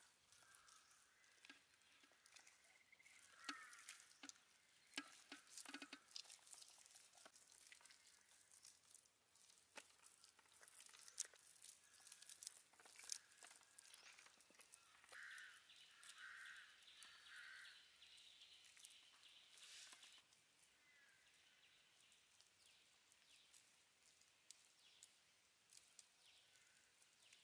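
Faint wet squelching and sticky clicking of hands rubbing a thick spice paste into whole fish on a metal tray. A few short bird calls sound during it, three of them close together around the middle.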